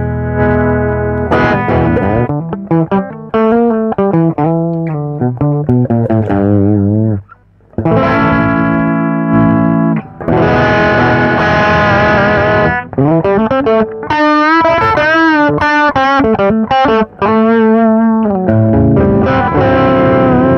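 Electric guitar played through a Marshall GV-2 Guv'nor Plus overdrive pedal, with the pedal's gain control being tried from its lowest setting. The player strums ringing chords and picks single-note lines with string bends, with a brief break about halfway through.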